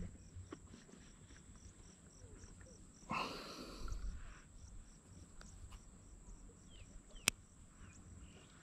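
Insects chirping in a steady pulse of about three chirps a second over a continuous high drone. A brief burst of noise comes about three seconds in, and a single sharp click near the end.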